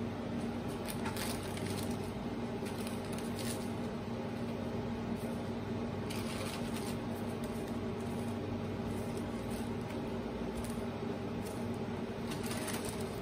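A steady low hum runs throughout. Over it come a few brief rustles and soft clicks of hands handling small parts and bits of plastic, about a second in, at three and a half seconds, around six to seven seconds and near the end.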